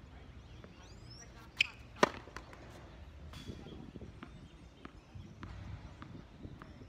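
Tennis ball impacts on a hard court: two sharp hits about half a second apart, the second the loudest, then a few faint light taps.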